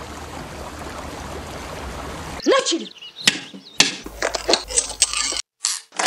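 Film sound effects: a steady rushing hiss like running river water for about two and a half seconds, then a quick run of sharp clicks and knocks with a brief rising-and-falling squeak. Near the end a key clicks as it turns in a door lock.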